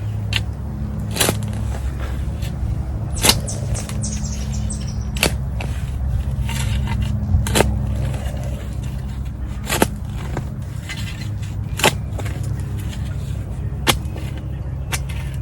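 A garden hand tool working soil loose, with sharp knocks and scrapes about every two seconds as it strikes the ground, over a steady low rumble.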